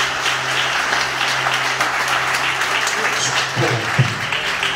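Congregation applauding in a hall, a dense, steady clapping, with a brief voice about three and a half seconds in.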